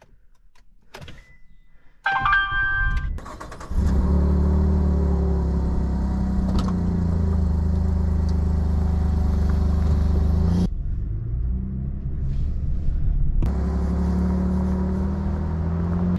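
Chevrolet Colorado pickup truck started from the driver's seat: after a few small clicks and a short high-pitched whine about two seconds in, the engine catches about four seconds in and runs steadily. Its sound drops in level for a couple of seconds near the end and then comes back up.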